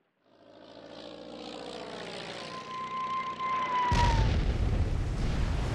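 Propeller aircraft engine droning as it fades in, then a falling-bomb whistle that dips in pitch, cut off about four seconds in by a loud explosion whose low rumble carries on.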